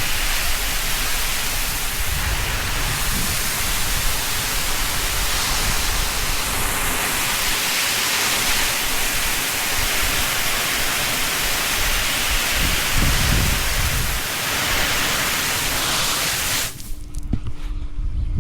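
A milking-shed washdown hose spraying water in a steady, loud rushing hiss. It stops abruptly near the end, leaving a quieter steady hum.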